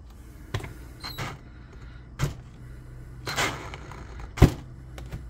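Handling noise: about five separate knocks and clunks, the loudest about four and a half seconds in, over a low steady hum. The drill is not running.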